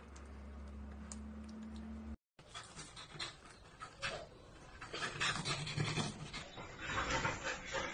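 A dog panting and gnawing on a rubber toothbrush chew toy, with irregular clicks and scrapes of teeth on the rubber that grow busier in the second half. A steady low hum runs under the first two seconds.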